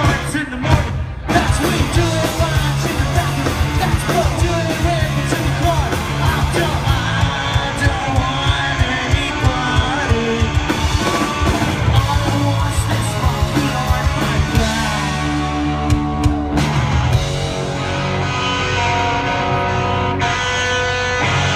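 Punk rock band playing live through a stage PA: distorted electric guitar, bass and fast drums under a yelled lead vocal. Near the end the beat thins out and long held notes ring.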